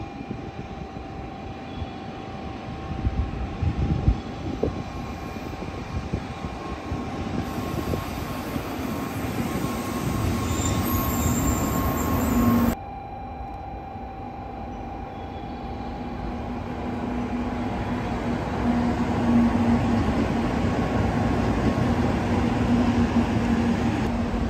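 N700-series Shinkansen bullet trains rushing through a station at high speed. The first train's pass builds to a loud rush and cuts off abruptly about halfway through, then a second train's pass swells steadily louder.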